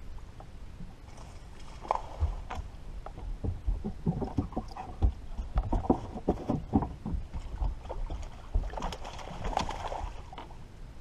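Small waves lapping and slapping against the hull of a fishing boat, giving irregular low knocks that come most often in the middle, with a short hiss shortly before the end.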